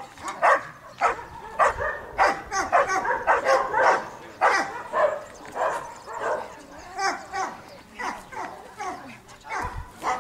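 Bouvier des Flandres barking over and over, about one to two barks a second, the barks closest together and loudest in the first half.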